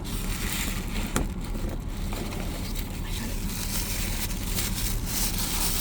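Rustling and handling of a toy blind-box's packaging, with scattered small clicks, over a steady noisy hum of a car interior.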